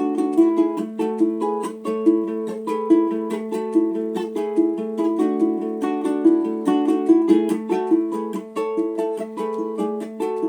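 Beau Hannam 17-inch tenor ukulele, curly maple with an Engelmann spruce top, tuned well below standard tenor tuning, played in a relaxed Hawaiian style: a steady stream of plucked notes and chords.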